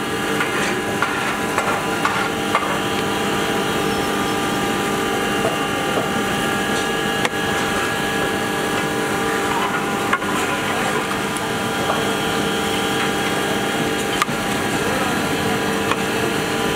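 A long spatula stirs mutton chunks in broth in a large metal cooking pot, knocking against the pot a few times. Under it runs a steady mechanical hum.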